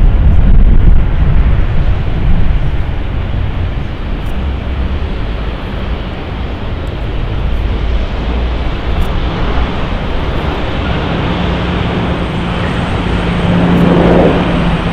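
Finnair Airbus A319's twin jet engines running at high power as the airliner rolls along the runway. The noise grows toward the end as it passes closest, with a steady drone and a high fan whine coming through. Wind buffets the microphone underneath.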